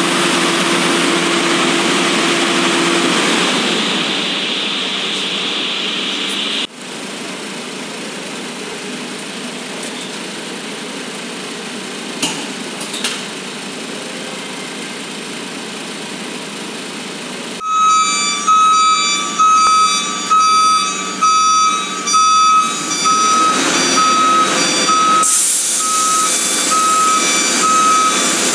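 A fire truck's engine runs steadily. Then, from about two-thirds of the way in, a warning beeper sounds a regular high beep a little faster than once a second over the engine, and a hiss joins near the end.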